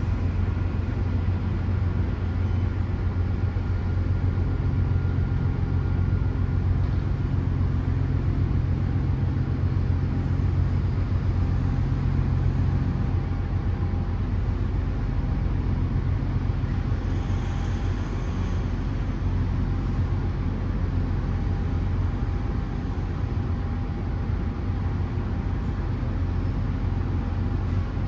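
Steady low rumble of heavy engines, with faint steady whining tones above it.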